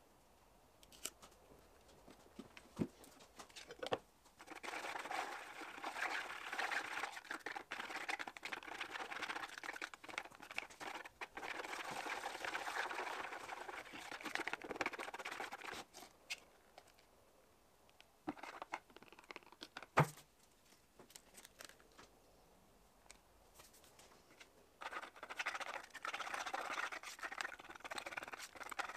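Wooden stir stick scraping round a plastic tub of epoxy resin as it is mixed, in two long spells of steady scratching, the second starting a few seconds before the end. Between them come a few light clicks and one sharp knock, the loudest sound.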